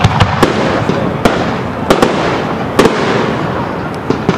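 Fireworks display: a rapid, irregular string of sharp aerial shell bangs, about eight or nine in a little over four seconds, over a continuous noisy rumble from the show.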